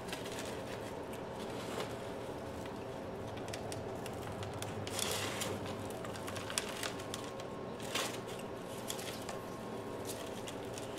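Coarse bark orchid potting mix, with perlite and charcoal, rustling and crunching as hands press it in and work it around a plant in a plastic pot, with scattered light clicks and a louder rustle about five seconds in. A steady faint hum runs underneath.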